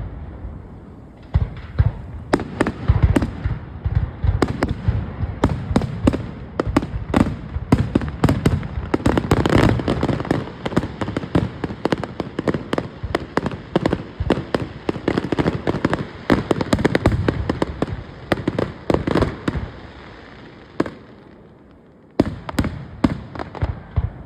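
Fireworks display: a dense, rapid run of booms and crackling bursts going off one after another, dropping away to a brief lull about 21 seconds in, then a few more bursts near the end.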